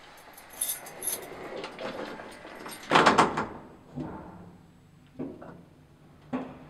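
A door being handled: light jingling and clicks like keys in the first second or so, a loud clatter about three seconds in, then a few separate knocks.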